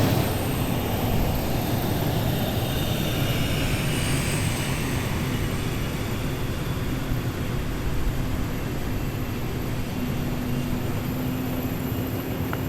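Heavy military vehicles driving past in a column, a steady deep engine rumble. A whine glides down in pitch over the first few seconds as one machine passes, with a sharp click at the very start.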